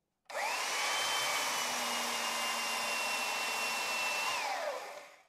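A Makita belt sander is switched on and spins up with a rising whine. It runs steadily for about four seconds, sanding the end grain of a wooden stool leg, then is switched off and winds down with a falling whine.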